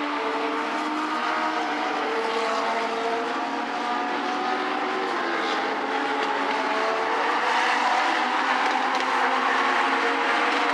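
Several Legends race cars' four-cylinder Yamaha motorcycle engines running at speed around a short oval. Their pitches overlap and slide up and down as the cars pass, a little louder in the second half.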